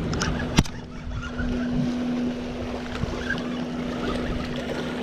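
Wind buffeting the microphone over waves and water washing against rocks, with one sharp click about half a second in and a steady low hum underneath.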